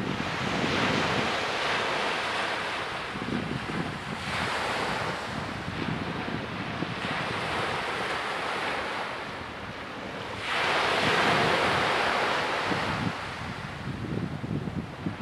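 Small waves washing up onto a sandy beach, the surf rising and falling about four times, every three seconds or so. Wind rumbles on the microphone underneath.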